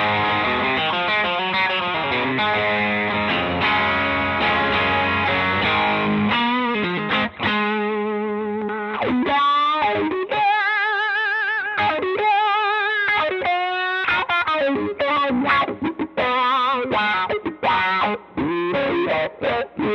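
Electric guitar, a Fender Stratocaster, played through a Rola Reverb 50 combo amp: full chords for about the first six seconds, then single-note lead lines with string bends and wide vibrato.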